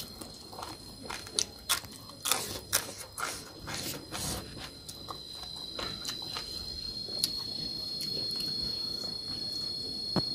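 Close-up eating sounds: rice and pork mixed by hand on a steel plate and chewed, a string of sharp, wet clicks and smacks. An insect trills steadily at a high pitch behind, growing louder about halfway through.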